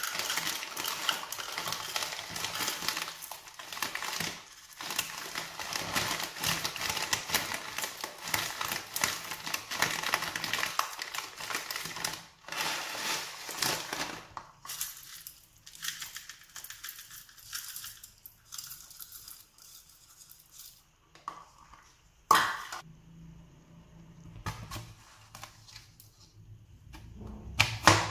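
A foil packet crinkling and rustling as mixed nuts and dried fruit are poured from it into a plastic measuring cup, dense and crackly for about the first half. After that it goes much quieter, with a few separate sharp knocks, one loud one about two-thirds of the way through and another at the very end.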